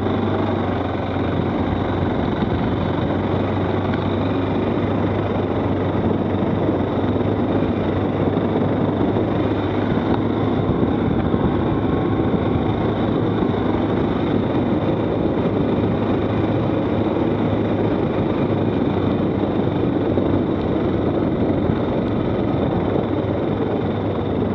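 Stels 800D ATV engine running steadily while the quad is ridden, its pitch holding even, under a constant rushing noise.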